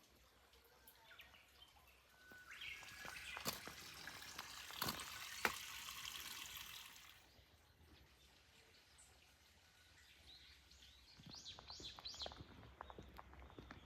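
Water splashing for about five seconds, then a small bird chirping several quick times over a few light footsteps.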